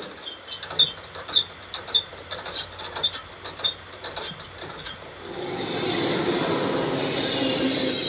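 Sharp metallic clicks and clanks, a couple each second, for about five seconds. Then the sound of a moving freight train swells, with steel wheels squealing high on the rails.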